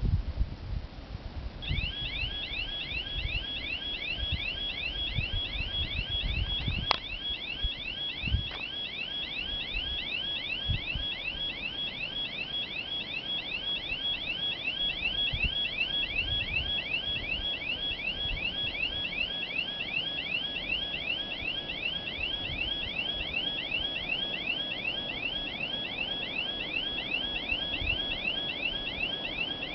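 Railway level crossing warning signal starting up about two seconds in, a rapid, evenly repeating series of high electronic chimes, signalling that a train is approaching. Wind buffets the microphone.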